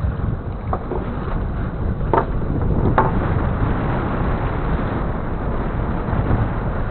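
Steady wind rumbling on the microphone over sea noise on a small boat, with a few faint short sounds about one, two and three seconds in.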